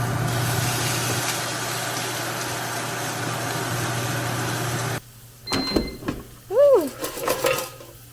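Steady whirring hum of a running appliance motor or fan, cutting off abruptly about five seconds in. After it come a few light clicks and knocks and a short sliding tone.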